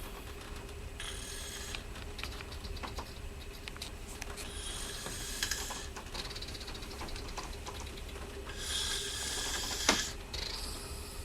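A person snoring, each breath a hissy, crackling rasp full of fine rapid clicks, coming about every three to four seconds over a steady low hum. A single sharp click just before the end is the loudest sound.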